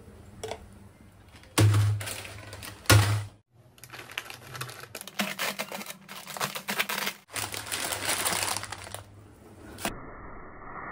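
Plastic instant-noodle packets being handled and cut open on a counter: dense crinkling and crackling of the wrappers, with two loud thumps at about two and three seconds in.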